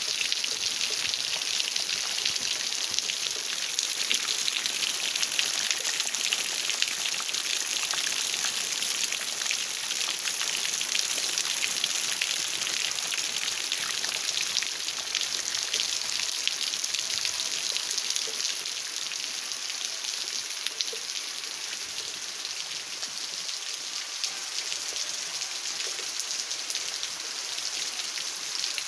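Steady rain falling on wet ground and puddles: a dense, even hiss of drops that eases slightly about two-thirds of the way through.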